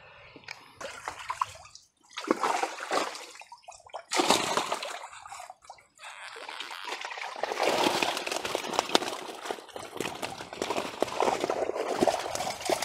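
A keepnet being hauled out of the river, water pouring and splashing out through the mesh: a few separate splashes at first, then continuous pouring and sloshing from about halfway.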